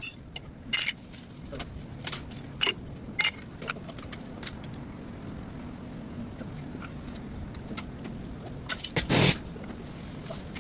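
Scattered metallic clinks and knocks of tools working on a car's shock absorber mount, with a louder rasping burst of about half a second near the end.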